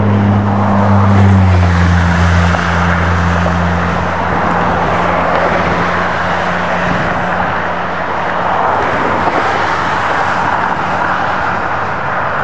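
Diesel locomotive of an approaching freight-style train running with a steady low engine drone, which drops a little in pitch about a second and a half in and then fades under a constant rushing noise of wind on the microphone and the rolling train.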